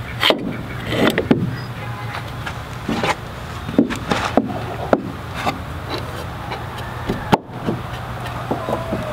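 Pipe clamp being adjusted and tightened against pine boards: irregular sharp knocks and clicks of its metal jaws and handle on the wood, with some wood rubbing.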